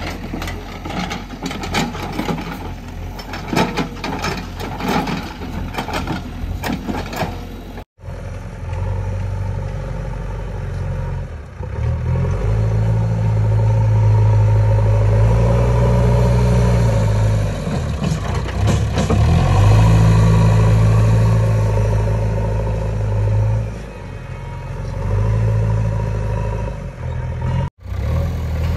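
Heavy diesel engine of earthmoving machinery working under load, its low note rising and falling as it revs. The first several seconds are full of irregular knocks and clatter over the engine, then the sound breaks off suddenly and the steady revving engine takes over.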